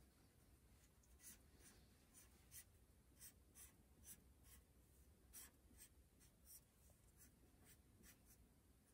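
Faint scratching of a black felt-tip pen on paper, in many short, irregular strokes as small squares are drawn.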